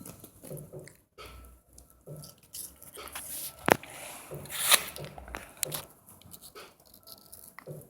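A poodle chewing and crunching a green apple: irregular bites and crunches, with two sharp loud cracks near the middle.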